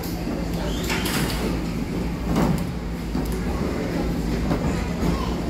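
Hard plastic wheels of children's ride-on toys rolling and rumbling over a plastic track and floor, with a few light clicks.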